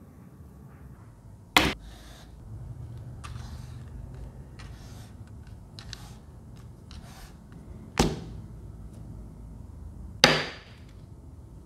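Three sharp plastic knocks, a few seconds apart, from a handheld bladeless mini fan and its detachable base being handled on a tabletop, with soft handling rustle between them; the last knock rings briefly.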